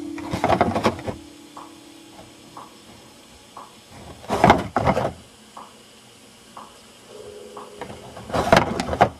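Clock ticking about once a second. A louder scraping, rustling burst under a second long comes three times, about four seconds apart.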